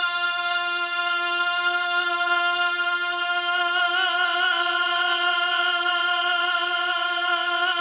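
One long high sung note held at a single pitch, with a slight waver about four seconds in, in a naat recitation.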